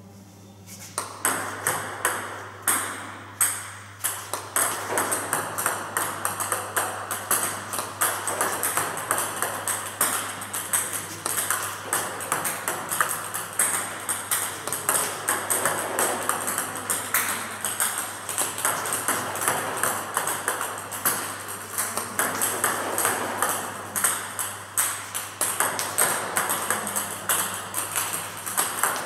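Plastic table tennis balls clicking off a rubber-faced bat, bouncing on the table and dropping onto the hard floor during repeated backspin serves. It starts as separate sharp clicks about a second in and turns into a quick, dense run of clicks after a few seconds.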